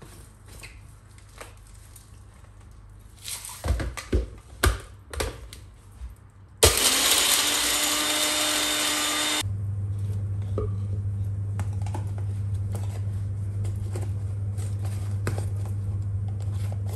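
A personal bullet-style blender grinding dry-roasted whole spices into masala powder. It starts suddenly after a few clicks and knocks as the cup is handled and pressed onto the motor base, and runs loudly for about three seconds. A steady low hum follows once the grinding stops.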